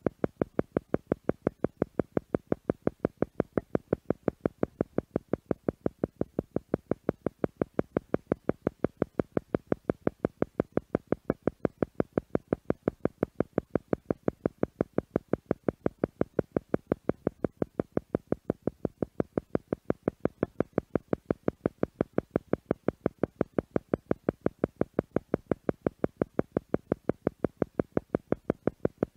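Theta meditation sound: a tone pulsing on and off several times a second in a steady, even rhythm. The pulse rate is meant to lead the listener's brainwaves toward the theta state.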